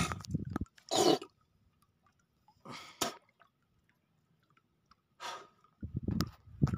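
Three short, sharp breathy bursts from a person, like sniffs or forceful exhales, a second or two apart. A low rumbling noise stops about half a second in and comes back near the end.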